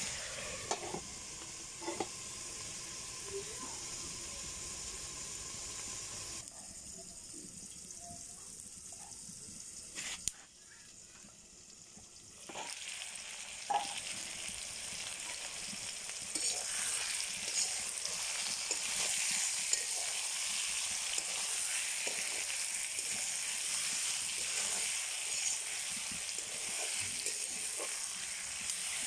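Potato strips and green chilies frying in oil in a metal wok, sizzling steadily, with scattered clicks and scrapes of a spatula stirring them. The sizzle drops low for a couple of seconds just before the middle, then comes back louder for the second half.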